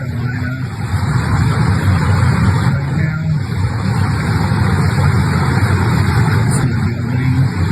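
A motor vehicle running steadily, its low engine and road rumble unbroken throughout.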